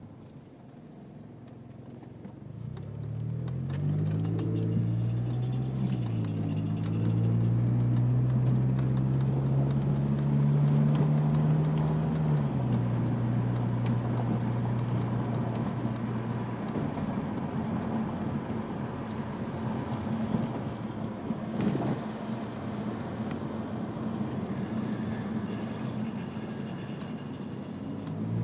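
Third-generation Mitsubishi Eclipse driving through a right turn: the engine pulls up in pitch over the first few seconds, holds, then drops back, followed by a rougher rumbling stretch with a single sharp knock. This is the noise the car makes when turning right, which the owner suspects comes from the exhaust flex pipe or a CV joint.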